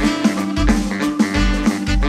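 Military wind band playing a swinging big-band groove. Saxophones, marimba and a drum kit play over a steady low beat of about two a second.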